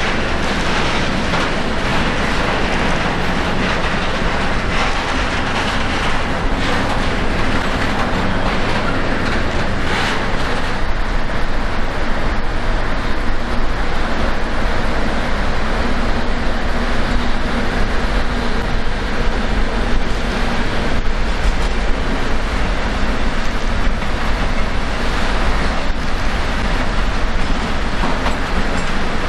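A train moving along the tracks at a station platform, a steady rail and running noise that grows a little louder and deeper about a third of the way in.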